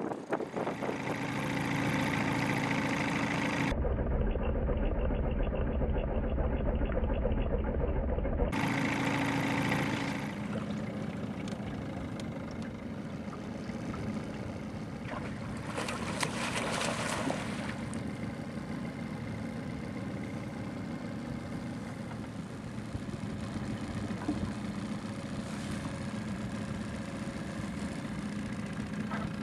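Small boat's outboard motor running steadily at low trolling speed, a constant even hum.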